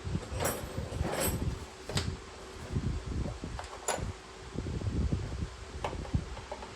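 Hand tools being handled at a car's nut: sockets and a wrench clinking and knocking on metal, with about five sharp clicks spread over the few seconds and some rumbly handling noise, over a faint steady hum.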